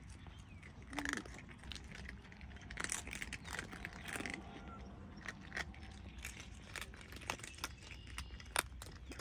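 Several cats crunching dry kibble, a dense run of irregular sharp crunches and clicks. A short pitched call sounds about a second in.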